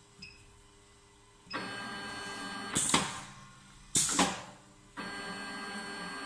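Automatic measured-length cutting machine with a rotary knife working through its cycle. After a short beep, the feed motor whines steadily for about a second, then the cutting mechanism strikes with a loud sharp clack, followed by two quicker clacks. The feed starts whining again near the end.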